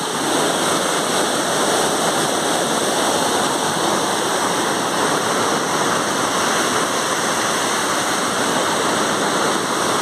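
Steady rush of a fast-flowing waterfall stream, an even hiss of water that does not let up.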